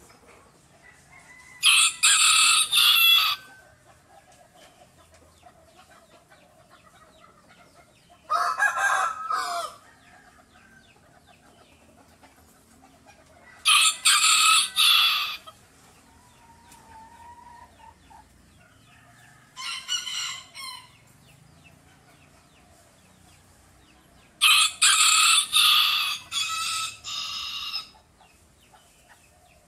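A small bantam rooster crowing five times, one crow every five to six seconds, the last one the longest.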